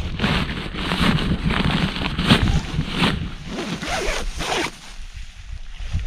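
Zipper on a nylon sleeping bag cover being pulled in several short, rasping strokes, which stop about three-quarters of the way through.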